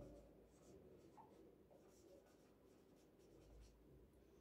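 Faint scratching of a marker pen writing words on a whiteboard, in a series of short strokes that stop about halfway through.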